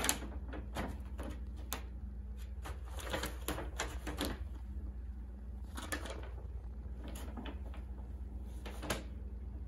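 Brown kraft paper shopping bag crinkling and rustling in short, irregular spells as a cat pushes its head into it and shifts about inside, loudest about three to four seconds in and again near the end.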